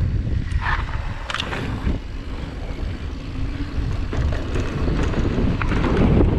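Wind buffeting the action camera's microphone as a YT Capra mountain bike rolls fast down a dirt trail, with a steady low rumble from the tyres and scattered clicks and rattles from the bike.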